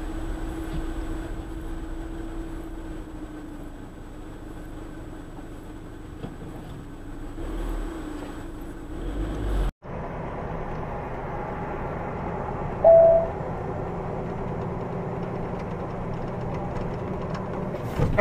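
Steady engine and road noise inside a moving car, cut off abruptly and replaced by the steady drone of a semi-truck's cab at highway speed. A short loud beep comes about thirteen seconds in.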